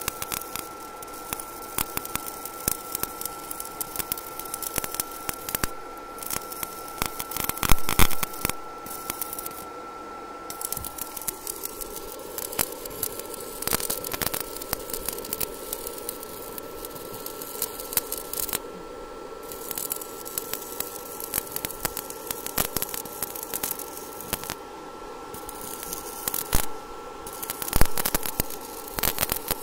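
Stick (shielded metal arc) welding on steel rebar: the electrode's arc crackling steadily, with a few brief breaks where the arc stops and is struck again. A steady high tone runs underneath.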